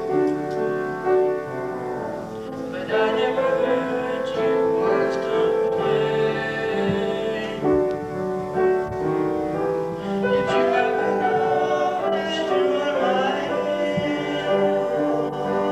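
Music: singing with piano accompaniment, the voice holding long wavering notes.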